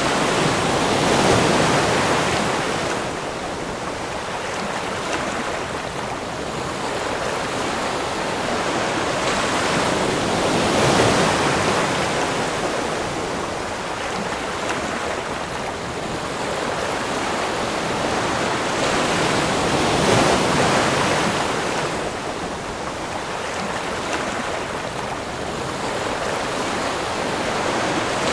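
Ocean surf: waves surging in and washing back, a steady roar that swells three times, about nine or ten seconds apart.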